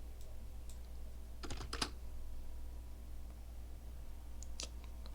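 Computer keyboard keys tapped in two short clusters, one about a second and a half in and another near the end, over a steady low hum.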